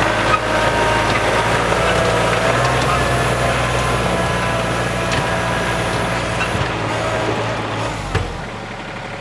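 Tractor engine running steadily with a higher whine that wavers in pitch over it; a click near the end, after which it runs quieter.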